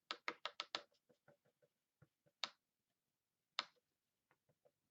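A paintbrush knocking against a hard dish while gouache paint is picked up and mixed: a quick run of light clicks, about seven a second, that thins out after a second, then two single clicks.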